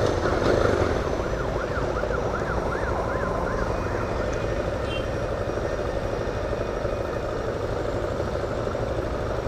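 Steady road and engine noise of a Yamaha XTZ 250 Lander being ridden. For the first four seconds an emergency-vehicle siren wails quickly up and down, about three sweeps a second.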